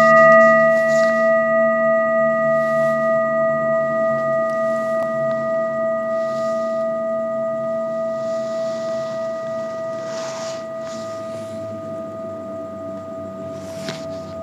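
Metal singing bowl ringing after a single strike, one steady tone with a few higher overtones, slowly fading, with a slow wavering beat.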